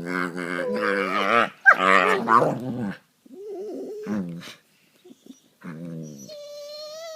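Dogs play-fighting, giving loud, wavering growls and grumbles for about three seconds. After a short pause come a few quieter growls, and a long, high, thin whine begins near the end.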